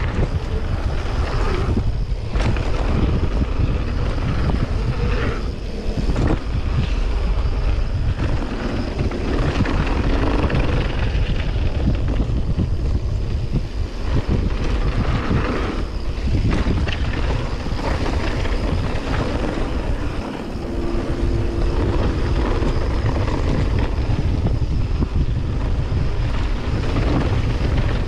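Wind buffeting the microphone as a mountain bike rolls fast down a dirt trail, a steady low rush with tyre noise and small knocks from the bumps.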